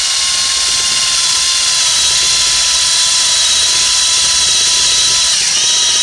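Cordless drill running at a steady speed with a 5/8-inch bit, boring a tunnel into the back of an artificial plastic duck head, with an even whine throughout.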